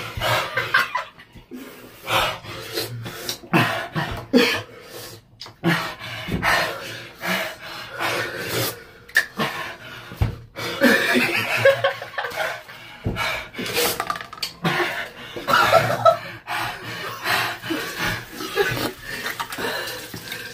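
A man panting and gasping with his tongue out from the burn of hot peppers, while another man laughs.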